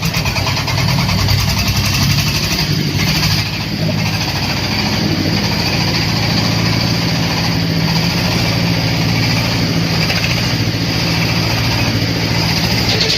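Dong Feng 30 hp single-cylinder diesel engine running steadily, driving a corn sheller; it settles into a steady run within about the first second.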